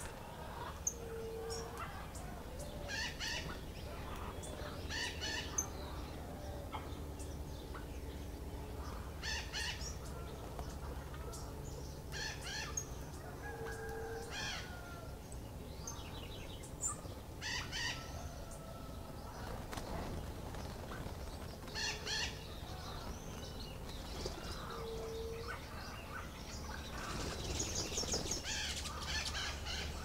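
Backyard birds chirping in short clusters every two or three seconds, with three brief low hoots about one, fourteen and twenty-five seconds in, and a louder run of chirping near the end.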